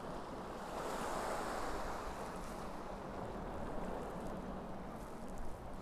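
Sea waves washing on the rocky shore, a steady rushing that swells a little about a second in, with some wind on the microphone.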